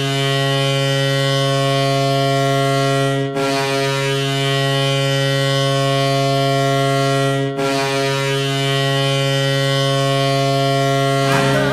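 Los Angeles Kings' pre-2005 arena goal horn blowing: a loud, steady, low horn sounded in three long blasts of about four seconds each, with brief breaks between them. Music begins just before the end.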